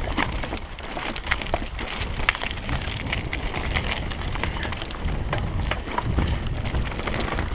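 Trek Remedy 9 mountain bike descending rocky, gravelly singletrack at speed: tyres crunching over loose stones, with a dense patter of sharp clicks and rattles from stones and the bike. Wind rumbles on the microphone underneath.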